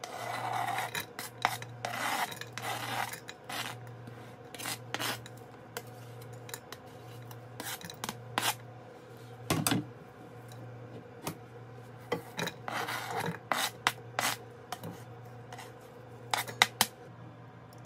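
Chopped garlic and diced onion scraped off a plastic cutting board and pushed with a spatula into a stainless-steel Instant Pot inner pot: repeated short rasping scrapes and sharp clicks of plastic against metal, over a faint low hum.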